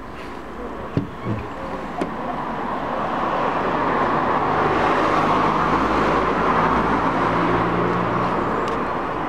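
A car driving past on the street, growing louder and then fading away over several seconds. A few small knocks sound near the start.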